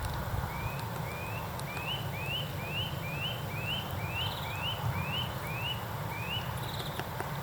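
A bird repeating a short rising note about twice a second, a dozen or so times, then stopping near the end, over a steady low rumble.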